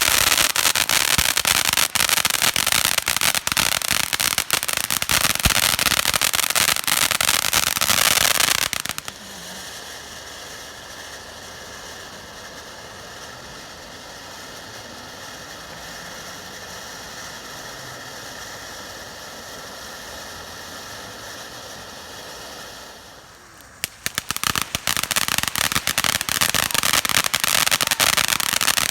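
Consumer fireworks crackling and popping in a dense, rapid string. About nine seconds in it drops abruptly to a much quieter steady hiss. The crackling starts again as suddenly near the end.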